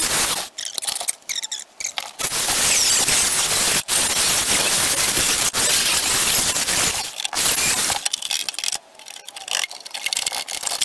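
Angle grinder with a thin cutting disc slicing through the rusty steel floor pan of a 1981 Rover SD1, sending off sparks. It cuts loudly in runs, easing off briefly about half a second in and again around seven and nine seconds in.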